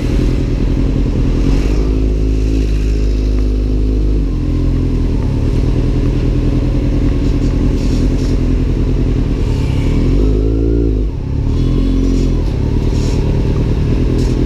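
Kawasaki Z800 inline-four engine through an Arrow aftermarket exhaust, running while being ridden. The engine note changes about four seconds in, and the revs rise and drop briefly about two-thirds of the way through.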